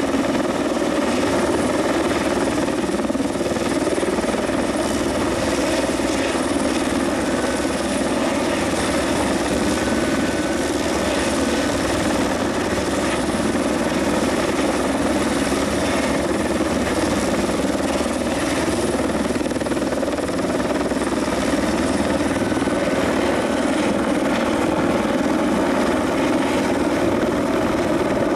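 Helicopter hovering, holding a load on a long sling line. The rotor and engine make a loud, steady noise with an even rotor beat.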